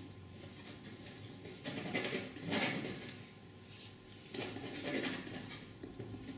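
Flexible painting knife scraping and dabbing thick oil paint, in two short bouts of scraping, the first about two seconds in and the second about four and a half seconds in.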